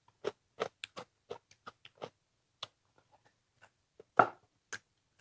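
Close-miked chewing of turmeric-braised frog: short mouth clicks and smacks at about three a second, thinning out after two seconds, with one louder smack about four seconds in.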